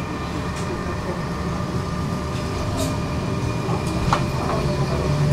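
Tram running, heard from inside the car: a steady rumble of wheels on the rails with a low motor hum that gets louder toward the end. Two sharp clicks about three and four seconds in.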